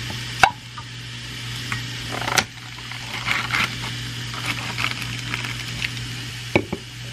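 Venison pork sausage sizzling as it browns in a cast-iron skillet over a gas flame, broken by three sharp knocks: about half a second in, two seconds later, and near the end.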